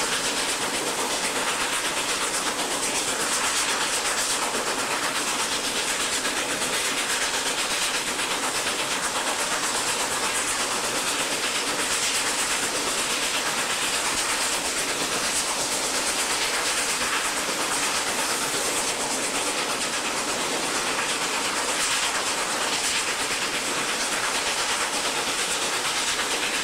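Norfolk & Western Class J 611, a 4-8-4 steam locomotive, under way, heard on board: a steady hiss of steam with the rumble and clatter of the train on the rails.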